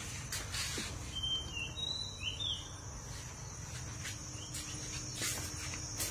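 Outdoor ambience: a steady high insect drone, with a few short bird whistles about one to two and a half seconds in and several light clicks or knocks scattered through it.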